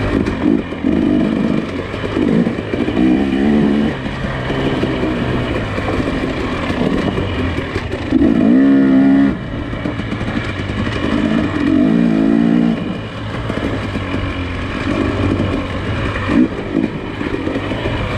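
Nissan Pathfinder SUV engine running under load on a rough trail, revving up and down in repeated surges over a steady drone, with one longer rev in the middle.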